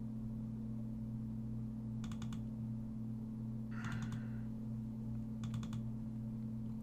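Computer mouse clicking in two short clusters of a few clicks, about two seconds and five and a half seconds in, with a brief soft rustle near four seconds. A steady low hum runs underneath.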